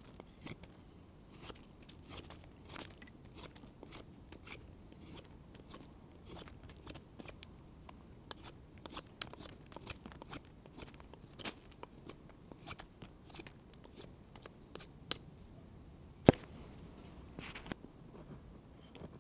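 Knife cutting and shaving a stick of resinous pine into sap-rich kindling: a run of short scraping, cracking cuts, with one much louder sharp crack about sixteen seconds in.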